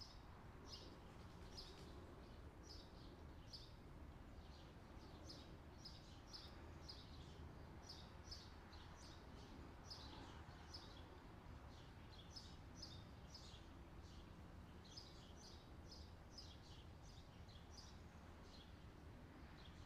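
Faint, quick scratches of a pen nib on paper, several a second in irregular runs as cursive letters are written, over a low steady hum.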